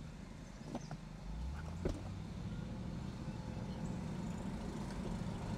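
Inside the cabin of a Lexus SC430 cruising at low speed: its V8 engine and the road make a steady low rumble, with two light knocks about one and two seconds in.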